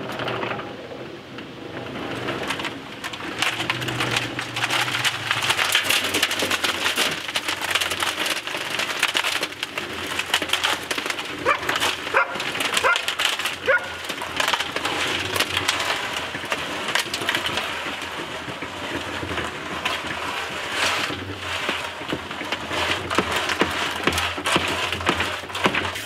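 Small portable cement mixer running, a batch of concrete and gravel churning and rattling in its turning drum over a low motor hum.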